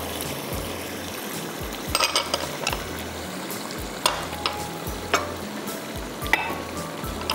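Chicken in tomato masala sizzling in a karahi as it is stirred, the spoon scraping and clinking against the pan about five times.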